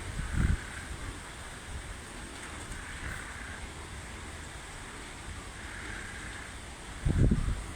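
Strong wind buffeting the microphone in low rumbling gusts, one about half a second in and a louder one near the end, over a steady rushing background.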